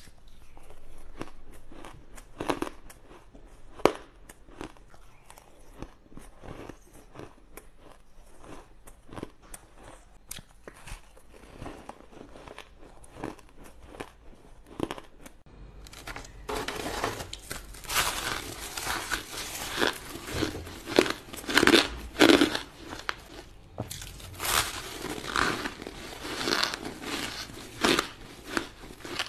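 Close-miked crunching of frosty, crumbly ice being bitten and chewed: a quick run of sharp crackles and crunches, growing denser and louder about halfway through.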